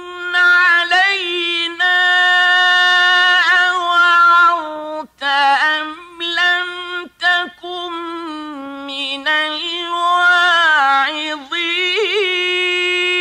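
A man's voice chanting Quran recitation in the slow, melodic mujawwad style: long held notes with wavering, trilled ornaments and gliding pitch, in several phrases with short breaks about five and seven seconds in.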